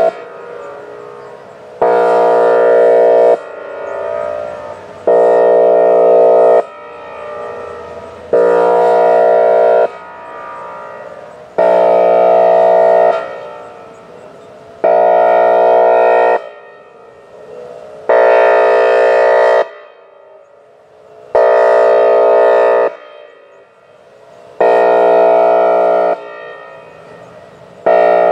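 Whelen Vortex R4 outdoor warning siren sounding its air-horn signal: a loud, steady multi-tone horn blast of about a second and a half, repeated about every three seconds.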